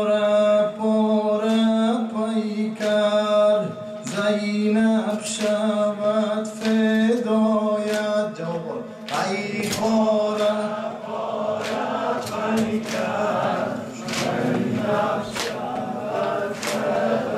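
A male reciter chanting a Persian-language nawha, a Muharram mourning lament, in long held notes. About nine seconds in, a chorus of men's voices takes up the chant, with sharp beats about once a second.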